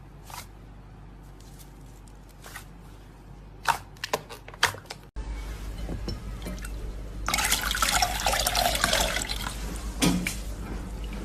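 Slime being handled: scattered wet, sticky clicks and pops. After a sudden cut about five seconds in, a low steady hum comes in, with a dense stretch of loud squelching crackle in the middle and a single pop near the end.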